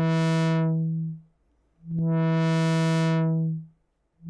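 Moog Mother-32 analog synthesizer holding one low note while its low-pass filter cutoff is swept up and down by hand. The tone brightens, then closes down to silence, twice, and a third sweep begins near the end: the same slow wah that a triangle LFO on the cutoff gives.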